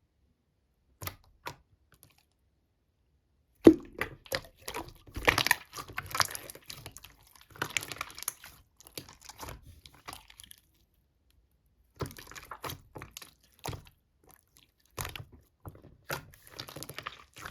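Slime being squeezed and pressed by hand, making sticky crackling and popping sounds. It comes in short spells separated by pauses, busiest from about four seconds in.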